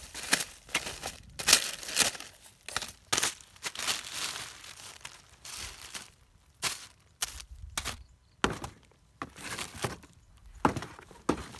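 Plastic bags crinkling and rustling in irregular bursts as they are pulled about by hand.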